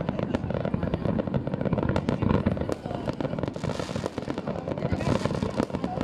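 Fireworks display: a dense, unbroken run of bangs and crackles as many shells burst one after another.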